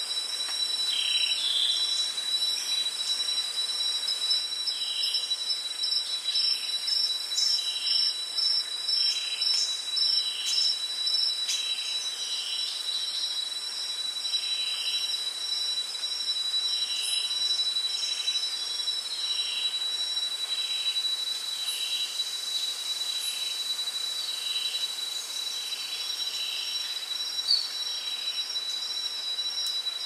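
Rainforest insects calling: a steady high-pitched drone with a fast pulsing trill above it. A short lower call repeats roughly once a second through most of it.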